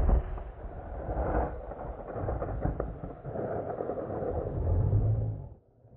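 Tail of a hunting rifle shot: the report rolls and echoes off the mountain cliffs as a long rumble that swells and fades for about five seconds, then cuts off sharply near the end.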